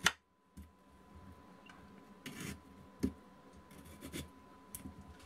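A knife scoring slits into raw eddoes (taro corms): a few faint, short scrapes and ticks of the blade against the tough skin.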